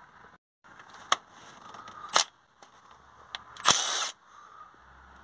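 Cordless Milwaukee power tool spinning out the 10 mm bolts that hold a water pump: a short burst about two seconds in and a longer half-second run near the end, with a few sharp clicks between.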